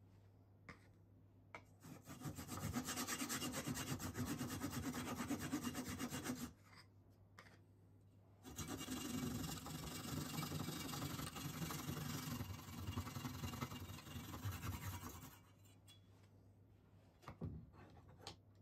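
Stanley handsaw cutting through a small wooden disc held in a bench vise, in two bouts of sawing several seconds long with a short pause between. A couple of light knocks near the end.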